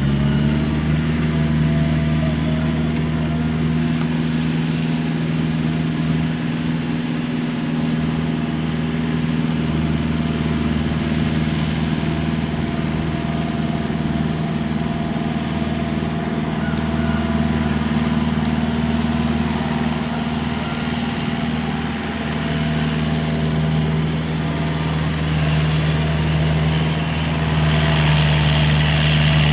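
Kubota L5018 tractor's diesel engine running steadily at working speed while pulling a rotary tiller through a paddy field. It grows a little louder near the end as the tractor comes closer.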